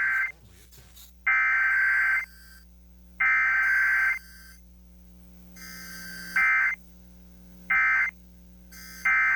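EAS SAME digital data bursts: three screeching tone bursts of about a second each, a second apart, which are the coded alert header sent three times. They are followed by three short bursts, the end-of-message code, with no attention tone between them, as on a required weekly test.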